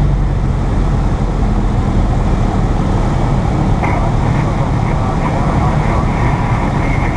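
Cessna Cardinal's single piston engine and propeller droning steadily, heard from inside the cabin.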